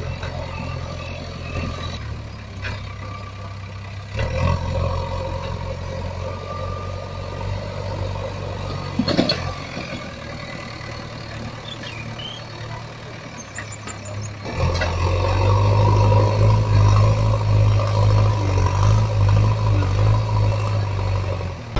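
Engine running steadily with a low, even hum, growing noticeably louder about fourteen seconds in, with a brief knock near the middle.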